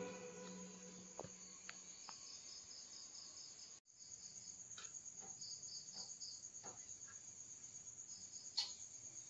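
Crickets chirping faintly: a steady high trill with a pulsing chirp just below it, while the tail of a music track fades out over the first two seconds. A few faint clicks come through.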